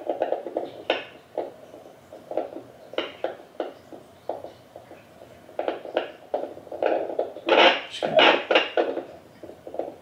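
Neeva Baby home fetal Doppler's speaker crackling and scraping as its probe is slid over a gelled belly. It gives irregular scratchy pulses with a louder burst about three-quarters through, and no clear fetal heartbeat comes through.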